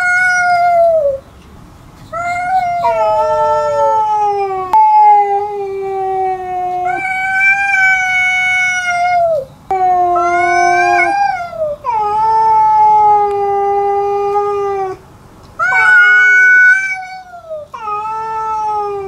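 Two domestic cats yowling at each other in a territorial standoff. Long drawn-out moaning calls follow one after another, one voice lower and one higher, sometimes overlapping, and several calls sag in pitch as they end.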